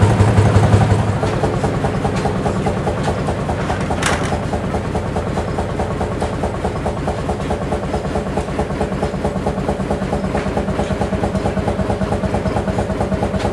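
A 120 HP Fairbanks Morse two-cylinder diesel engine running steadily with a rapid, even beat. A loud low hum fades out about a second in, and a single sharp click comes about four seconds in.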